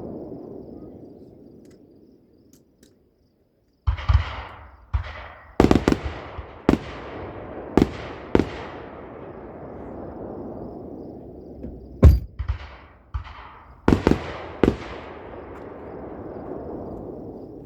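Aerial fireworks bursting: a rumbling echo dies away, then after a brief gap a run of a dozen or so sharp booms over about ten seconds, each trailing a rolling echo.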